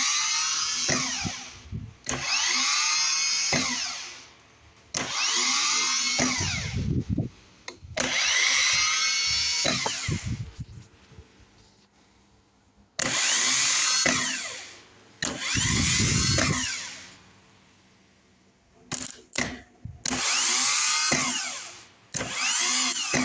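Rebuilt starter motor, with a new Bendix drive and brush box, spinning freely on a bench test, switched on about seven times in short runs of a second or two. Each run is a high whine that climbs as it spins up and falls away as it winds down. It spins smoothly, like brand new.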